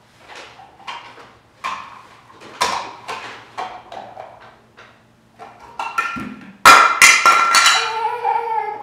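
Plastic clicks and knocks from a toy blender as a child presses down on its lid and works the jar, with a louder clatter near the end as the jar is pulled off its base.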